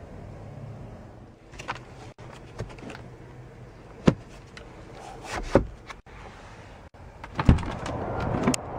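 Sharp plastic clicks and knocks of hands working a 2011 Jeep Grand Cherokee's interior trim, with the sun-visor vanity mirror cover clicking about four seconds in. Near the end the inside door handle is pulled with a louder clack and the door latch releases, and a rising rush of outside noise follows.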